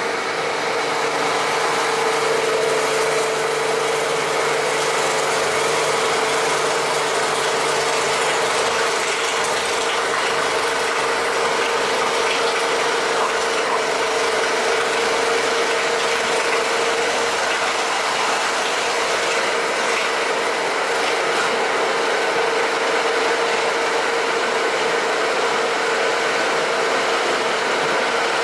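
Heavy-duty stone wet grinder running steadily on its 2 HP Marathon electric motor. It makes a loud, even mechanical grinding noise with a steady hum as the emery stones grind soaked rice and water into idli/dosa batter.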